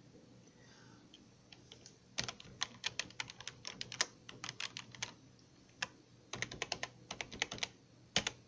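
Typing on a computer keyboard: quick keystrokes in a run from about two seconds in, a short pause, a second run, then a couple of final keystrokes near the end.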